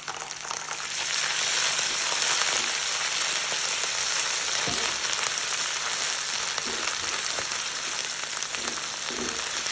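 Garlic and ginger sizzling with golden fried onions in hot mustard oil in a nonstick frying pan as they are stirred: a dense, steady crackle that swells about a second in.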